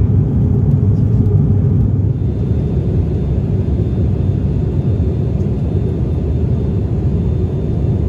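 Cabin noise of an ATR 72-600 turboprop in flight: the steady low drone of its engines and propellers heard from a passenger seat, dipping slightly in level about two seconds in.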